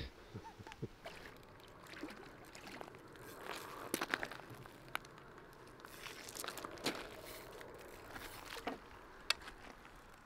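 Faint rustling and crunching with scattered small clicks and crackles: footsteps on dry leaf litter and a landing net being handled while a catfish is brought to the net.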